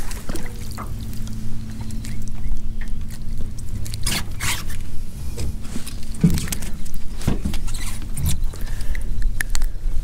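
Clothing rubbing and hands handling gear close to a chest-worn microphone, over a steady low rumble and hum, with a few sharp clicks and knocks scattered through.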